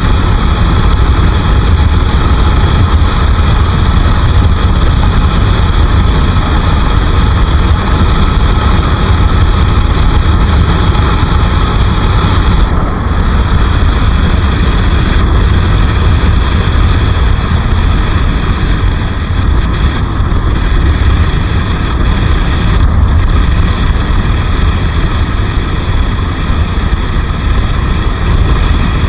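Bajaj Pulsar RS 200 single-cylinder engine running at a steady cruise, under heavy wind rumble on the microphone.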